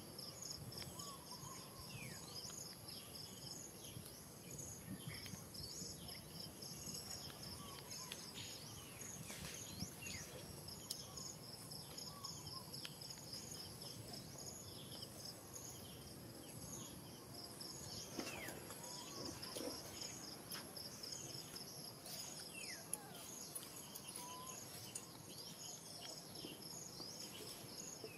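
Faint outdoor ambience dominated by insects trilling in a steady, rapidly pulsing high-pitched chorus over a thin constant whine. Short faint high calls come and go, a cluster of them about two-thirds of the way through.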